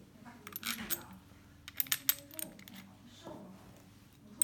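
Steel bolts clinking against an aluminium bike-sprocket hub adapter as they are handled and fitted: light, sharp metallic clicks in small clusters, about a second in and again around two seconds in.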